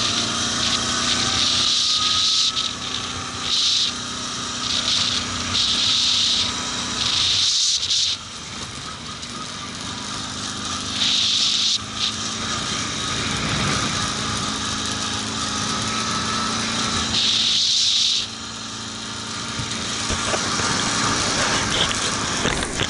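ATV engine running steadily while riding, with loud bursts of hiss every few seconds.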